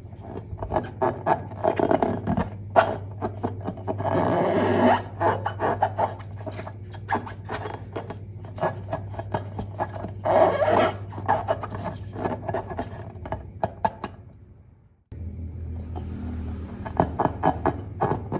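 Glossy slime being squished, stretched and folded by hand: rapid sticky clicks and crackles, louder in a few stretches. It cuts out suddenly near the end and then starts again.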